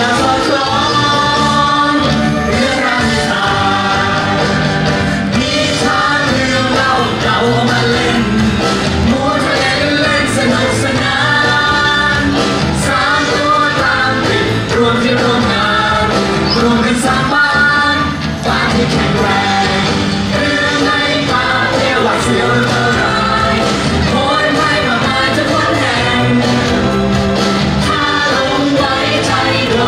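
A song sung in Thai over an instrumental accompaniment.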